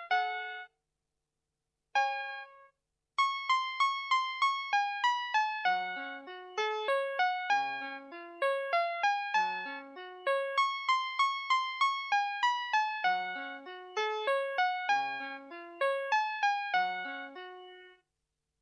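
Electronic melody played by a 2002 VTech Schlummerschnuffi toy: a simple piano-like tune of quick single notes, each dying away, which stops abruptly near the end.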